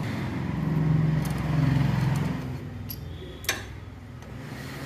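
A low engine hum swells and fades over the first two seconds, with a few light metallic clicks and one sharp click about three and a half seconds in as a wrench works the oil filter cover nuts on a motorcycle engine.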